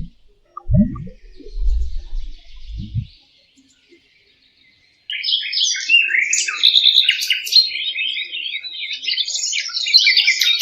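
A few low, muffled thumps early on, then near silence, then from about halfway through small birds chirping busily: many quick high notes overlapping without pause.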